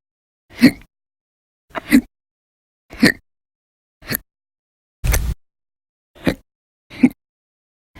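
A woman hiccuping over and over, one short sharp hic roughly every second, seven in all. The one about five seconds in is longer, with a heavier low thump.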